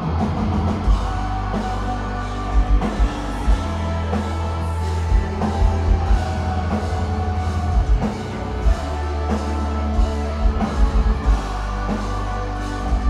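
Metalcore band playing live: distorted guitars and bass holding heavy chords over a drum kit, with kick-drum hits coming in quick clusters.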